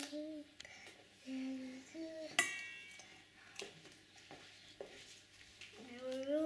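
A small child humming a few short held notes while a small stainless steel toy saucepan clinks; one sharp, ringing metal clink about two and a half seconds in, with a couple of lighter knocks later.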